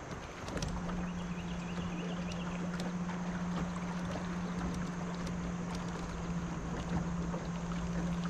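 Electric trolling motor starting about half a second in and humming steadily at one low pitch.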